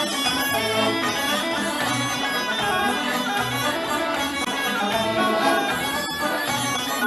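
Background music: a lively traditional folk tune played on bagpipes.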